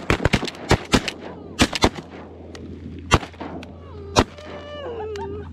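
Volley of shotgun fire from several hunters shooting at a flock of geese: rapid overlapping shots through the first two seconds, then single shots about three and four seconds in. A few falling calls follow near the end.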